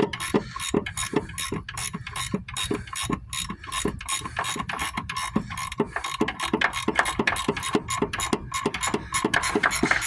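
Ratcheting gear wrench clicking rapidly and evenly as it spins off the top nut of a rear shock absorber, whose shaft is held still with vise grips.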